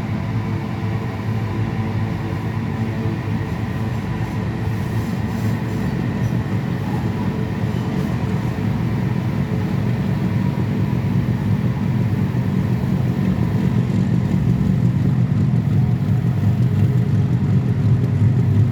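Freight train rolling past below a viaduct: a steady low rumble of wheels and cars, growing slightly louder toward the end.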